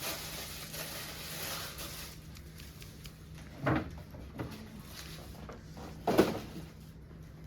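Shoe-box packaging being opened by hand: a stretch of rustling at first, then two knocks of the box or its lid, the second, about six seconds in, the louder.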